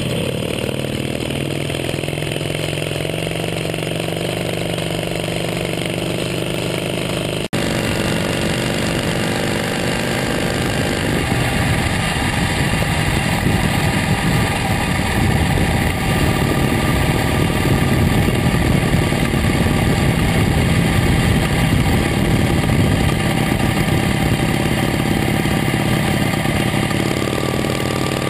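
1926 Excelsior Super X motorcycle's V-twin engine running hard at speed. It jumps abruptly to a louder, rougher sound about a third of the way in.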